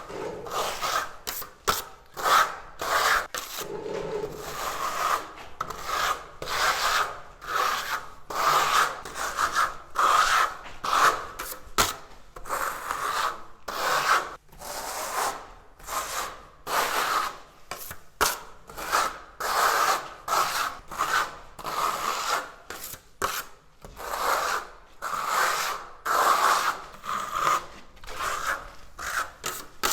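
Steel Venetian trowel scraping marmorino plaster across a wall covered with plastic facade mesh, in quick back-and-forth strokes at about one to two a second.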